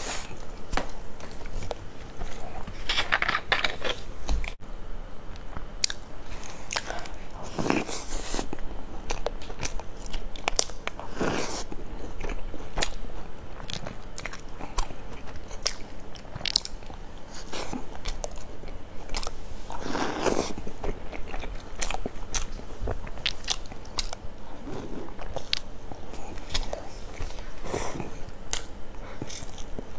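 Close-miked eating: a person biting and chewing food, with many short sharp crunches and wet mouth clicks and a few longer, louder chewing sounds.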